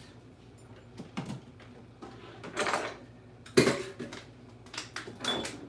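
Pots and utensils clattering as they are handled at a kitchen sink: a few knocks and a short scrape, with the sharpest clank a little past halfway.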